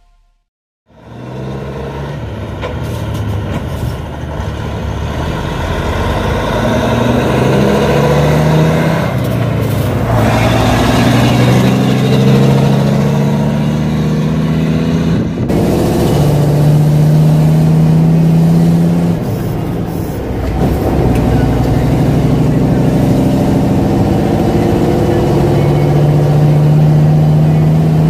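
Large diesel engines of harvest machinery running under load, their pitch stepping up and down as they rev, with an abrupt change about halfway through.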